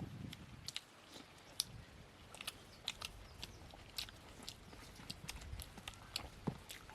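Close-up eating sounds of people chewing poori with mutton curry: irregular wet clicks and smacks, several a second, with no steady rhythm.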